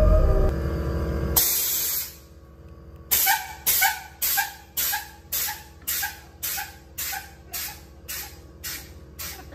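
Music with a heavy low bass stops about a second and a half in, giving way to a short burst of hiss. From about three seconds in comes an evenly spaced string of hiss pulses, roughly two a second, each fainter than the last like an echo, over a faint steady hum.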